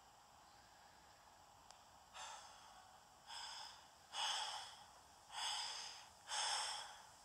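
Heavy, rhythmic breathing, about one breath a second, starting about two seconds in and growing louder with each breath.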